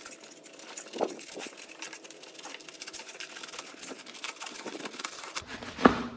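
Plastic scraper working under a dome of cured expanding foam on a plywood board: a dense run of small crackles and scrapes as the foam is pried loose. Near the end there is one sharp, loud crack as the foam breaks free.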